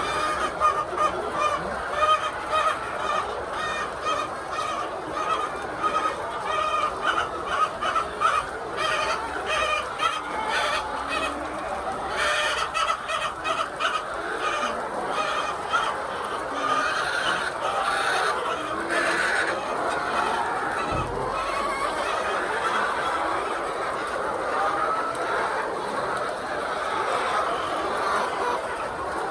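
A flock of laying hens clucking and cackling without pause, many short calls overlapping.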